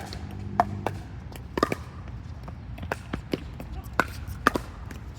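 Pickleball paddles striking a plastic ball and the ball bouncing on the court during a rally: a string of sharp, hollow pocks at irregular spacing. Steady low wind rumble on the microphone underneath.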